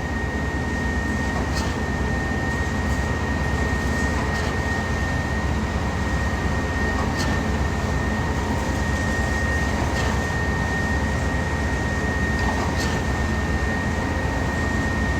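Steady running of heavy job-site machinery at a concrete pour: a constant low hum under a single steady high-pitched whine, with a few faint ticks.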